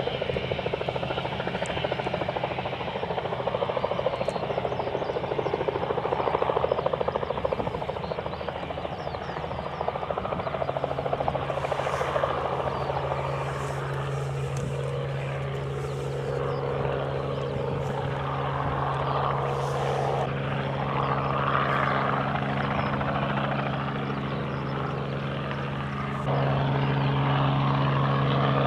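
Aircraft engine running at a steady speed: an even droning hum that sets in about ten seconds in and steps louder near the end, over a rushing background noise.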